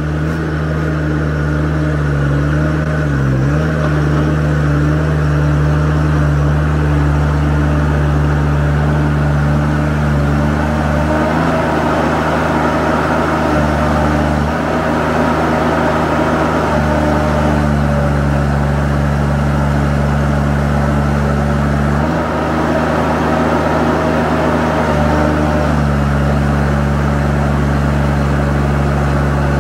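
Kubota DF752 gas/propane engine of a Genie rough-terrain scissor lift running steadily while the platform is raised from the control box. Its note shifts several times as the hydraulic functions engage. The hydraulics are working in the cold after the engine warmed up, on fresh 32-weight hydraulic oil.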